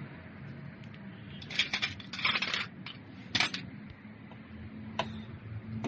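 Metal clinking and clattering: a few short rattles of metal tools or parts about halfway through and a single click near the end, over a steady low hum.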